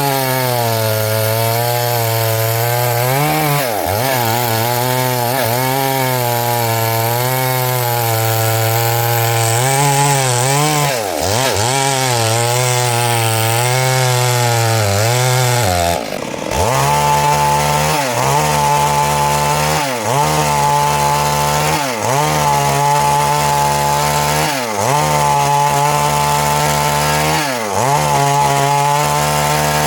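Stihl MS382 two-stroke chainsaw cutting through wood under load, its engine pitch wavering as the chain bites and recovers. About halfway through the sound briefly drops. It then runs on with its pitch sagging every couple of seconds.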